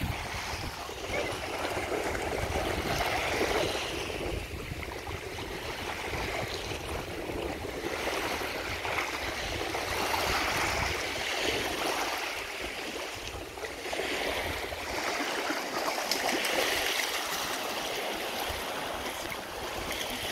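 Small waves lapping and washing in shallow water, a watery hiss that swells and fades every few seconds.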